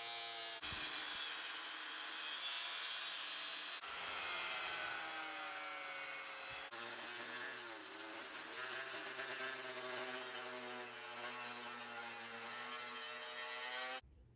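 Power tool grinding or cutting the steel of a concrete saw blade, its motor pitch wavering with the load. The sound breaks off briefly three times and stops suddenly near the end.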